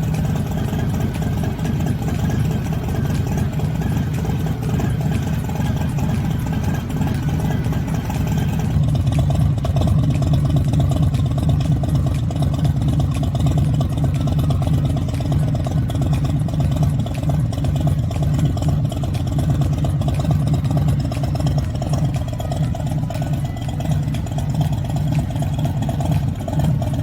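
Harley-Davidson Low Rider S Milwaukee-Eight 114 V-twin idling steadily through a freshly fitted Bassani Road Rage III 2-into-1 stainless exhaust during its first heat cycle. It gets a little louder and fuller about nine seconds in.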